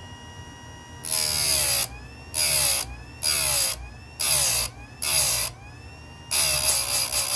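Electric chainsaw sharpener's grinding wheel humming, then pulled down onto a steel chain tooth in six short grinding touches of under a second each, the last one longer; the pitch drops each time the wheel bites. The damaged tooth is being ground back to a new angle in short bites so that it does not overheat.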